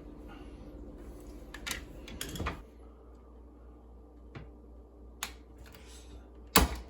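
Scattered sharp clicks and scrapes of a plastic switch plate being worked with a utility knife, with the loudest click near the end.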